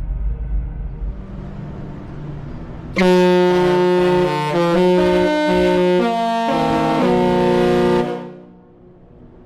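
A Disney cruise ship's melody horn plays a short tune: a loud chord of several horn notes that change pitch a few times, starting about three seconds in and lasting about five seconds. Before it there is a low rumble.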